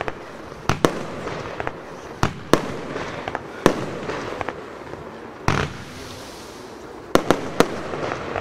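A Funke Silberpalmen Blinker firework battery (16 shots, 30 mm calibre) firing: about ten sharp bangs of shells launching and bursting, irregularly spaced and several in quick pairs, with a longer, fuller burst about five and a half seconds in.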